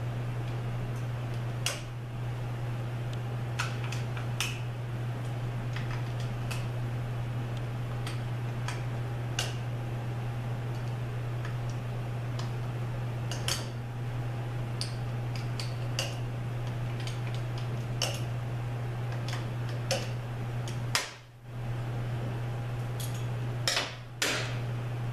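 Scattered single metallic clinks of hand tools and bolts while the valve body bolts are taken out of a Subaru 4AT automatic transmission, over a steady low hum that drops out briefly twice near the end.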